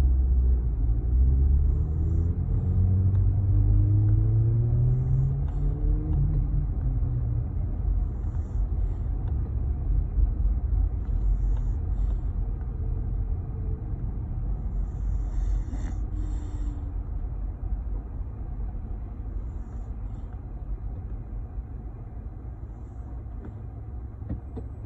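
A road vehicle's engine speeding up over the first few seconds, then a low, steady road rumble that slowly fades.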